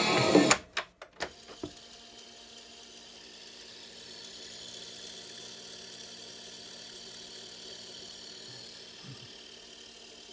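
Panasonic RX-5010 boombox cassette deck: tape music cuts off about half a second in with the clack of a piano-key button, a few more key clicks follow, and then the tape transport runs with a faint steady whir.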